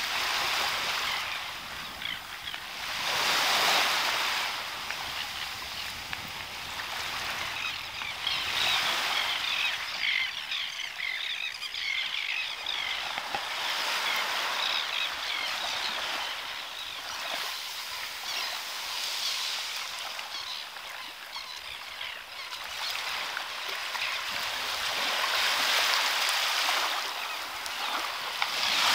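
Small waves washing up a sandy beach and fizzing back, swelling louder every few seconds.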